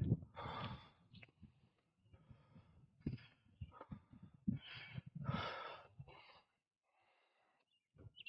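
A cyclist breathing hard, huffing and puffing with one heavy breath about every second, from the effort of pedalling uphill. The breaths fade into a short quiet stretch near the end.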